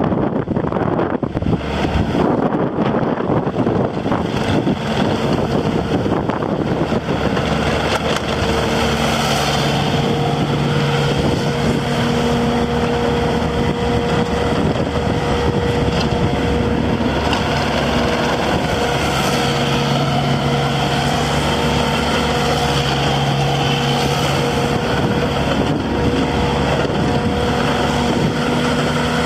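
Bobcat T870 tracked loader's diesel engine running steadily, with humming tones that come and go and shift in pitch from about a third of the way in as the machine works. There is wind noise on the microphone in the first few seconds.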